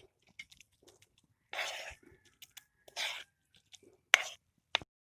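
Spatula stirring and scraping noodles in a pan: two short scraping strokes, then two sharp taps near the end.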